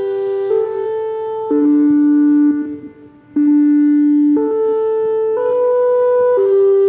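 Emergency alert tones: a slow sequence of steady, horn-like electronic notes, mostly two at a time, changing pitch about once a second and stepping down and back up. There is a brief fade and break about two and a half seconds in.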